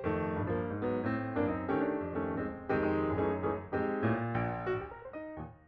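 Background piano music over the end card: struck notes and chords over a low bass line, growing quieter near the end.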